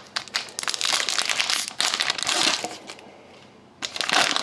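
Foil wrapper of a trading card pack crinkling as it is handled, in two spells with a quieter pause of about a second between them.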